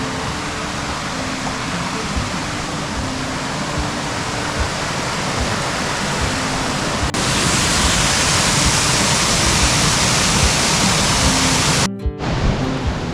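Steady rush of a waterfall, jumping suddenly louder and brighter about seven seconds in, with a brief break near the end. Quiet background music with held notes plays under it.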